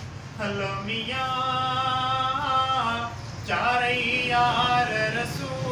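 A man singing a Sindhi naat unaccompanied, drawing out long held notes with ornamented bends in pitch; a short breath break about three seconds in before the next phrase.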